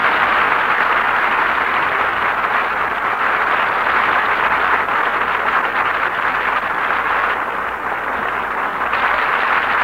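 Studio audience applauding steadily, heard through an old broadcast recording that cuts off everything above the middle treble.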